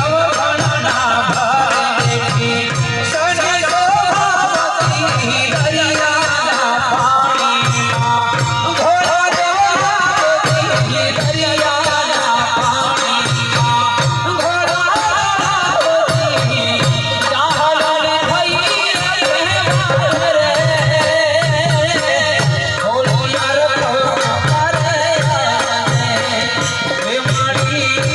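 Gujarati devotional garba music played live: a wavering melody over a steady, repeating hand-drum beat, with jingling rattle-like percussion on top.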